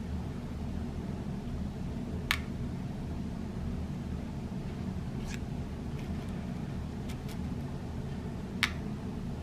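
Daisy .177 hollow-point lead pellets clicking as they are picked from their metal tin and set on the steel pan of a digital pocket scale, one at a time. A sharp tick about two seconds in and another near the end, with fainter ticks between, over a steady low background hum.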